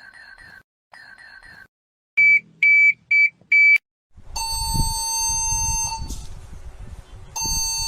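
Emergency Alert System-style alarm. It starts with quiet, rapidly warbling data bursts, then gives four loud high beeps, then a harsh steady alert tone over a rumbling noise. The tone drops out around the middle and comes back briefly near the end.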